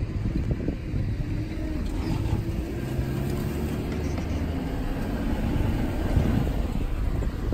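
Safari 4x4 vehicle engines running as they drive off across the grass, a steady low rumble with an engine note that drifts slowly in pitch through the middle.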